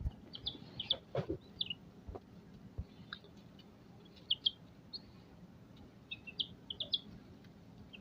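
Baby chicks peeping: many short, high chirps scattered through, with a few soft knocks in the first three seconds.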